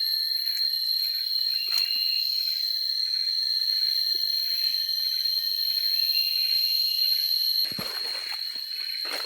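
A steady, high-pitched insect chorus, cicadas or crickets, drones on; near the end a rustling, shuffling noise joins it.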